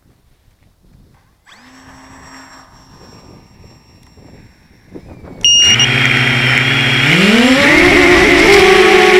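RC model airplane's motor and propeller starting abruptly and running steadily, then spinning up with a steadily rising pitch as the throttle is opened.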